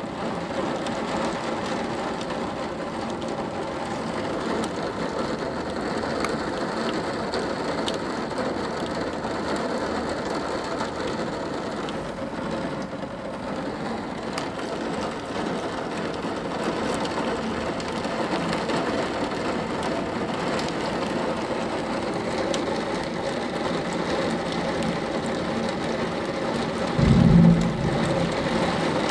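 Heavy thunderstorm rain falling hard and drumming on roofs, a dense steady hiss. A short, loud, low thump sounds near the end.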